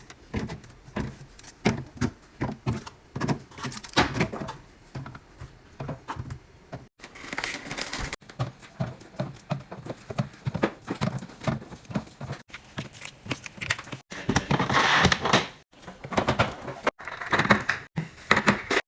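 Fridge-organizing handling sounds in quick cuts: containers and bottles set down with thunks and clicks, and fridge doors and drawers opening and closing.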